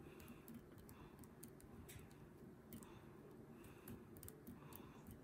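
Faint, irregular clicks of small scissors snipping at a jig's weed guard bristles.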